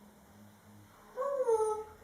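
African grey parrot giving one short call, slightly falling in pitch, that starts about a second in and lasts under a second.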